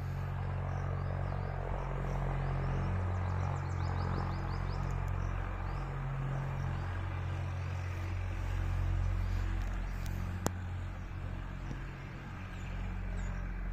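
A steady low mechanical rumble, like an engine running, with faint bird chirps high above it and a single sharp click about ten seconds in.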